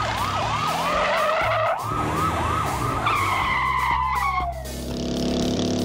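Emergency-vehicle siren sound effect in a fast yelp, its pitch sweeping up and down about three times a second, then falling away in a long downward wail. Near the end it gives way to a steady held tone, with background music underneath.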